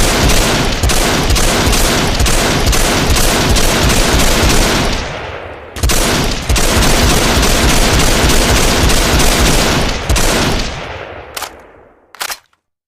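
Simonov AVS-36 7.62×54mmR automatic rifle firing two long bursts of rapid automatic fire, each tailing off into echo. Two brief, separate sharp sounds come near the end.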